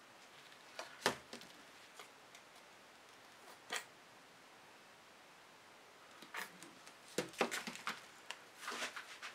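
Plastic squeeze bottles of acrylic paint being handled and set down on a table: a light knock about a second in, another near four seconds, then a flurry of small knocks and rasps in the last three seconds.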